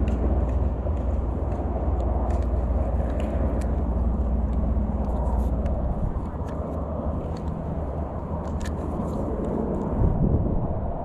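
Wind buffeting the camera's microphone, a heavy low rumble that eases a little past the middle and surges briefly near the end, with scattered small clicks and taps.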